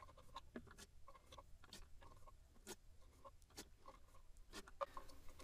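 Near silence with faint, irregular clicks and rustles of hands working a syringe at a plastic power-steering fluid reservoir.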